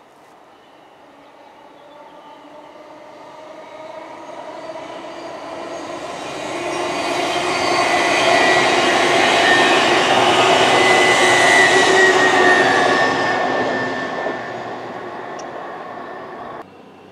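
TransPennine Express class 802 Hitachi bi-mode passenger train passing at speed: a rush of wheels on rail with a steady whine, growing louder as it approaches, loudest for several seconds as it goes by, then fading. The sound cuts off suddenly near the end.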